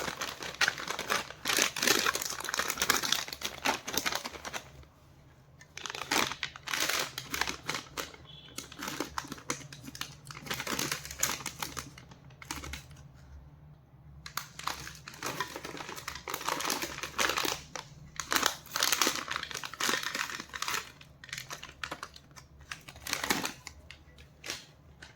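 Chocolate and candy wrappers crinkling and rustling as they are handled and opened, in three spells with short pauses between them, over a faint steady low hum.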